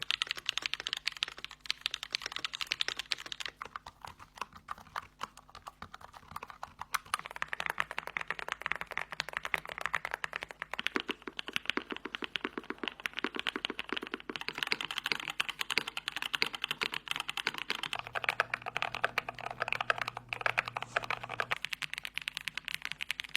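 Fast continuous typing on mechanical keyboards, several boards heard one after another, each with its own click tone, changing every few seconds.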